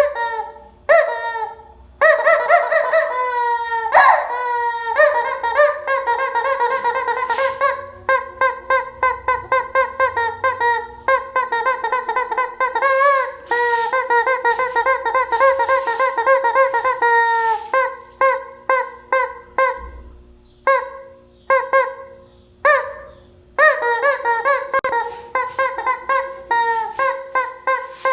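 Rubber squeeze-toy chicken honking as it is squeezed again and again: long, drawn-out honks through the first half, then short quick honks several a second from about two-thirds of the way in.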